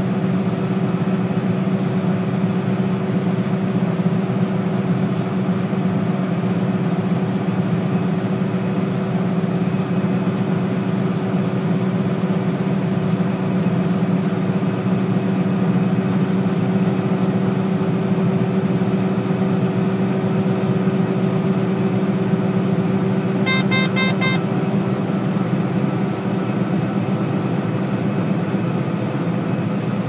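Combine harvester running steadily in the wheat, a constant low drone. Near the end a short run of electronic beeping, about a second long, sounds over it.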